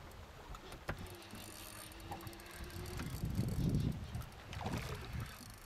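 Spinning reel being wound in while a hooked fish is fought on a bent rod: scattered clicks and, for a couple of seconds, a steady whine. Low buffeting about three seconds in, which fits wind on the microphone, is the loudest part.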